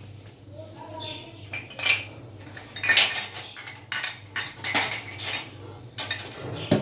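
Spoons and metal dishes clinking and scraping as utensils are handled, in irregular clatters that grow busier through the second half.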